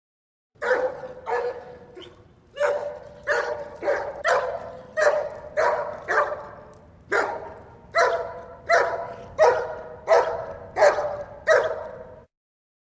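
German Shepherd barking, a steady run of single deep barks about two-thirds of a second apart, with a brief pause about halfway through.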